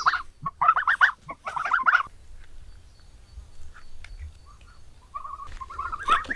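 Domestic geese honking in quick, pulsing bursts through the first two seconds, then quieter, with more short calls near the end.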